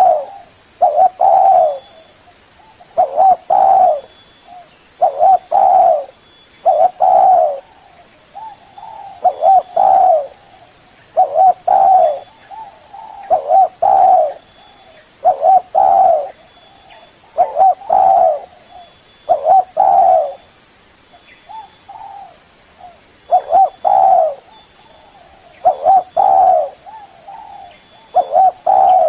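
Spotted dove (tekukur, Spilopelia chinensis) singing its cooing call over and over, each phrase a short run of low warbling coos, repeated about every two seconds.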